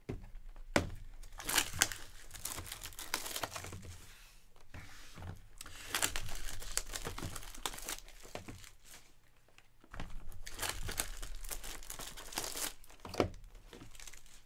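Plastic wrapping crinkling and tearing off sealed trading card boxes, with a few sharp clicks as the boxes are handled.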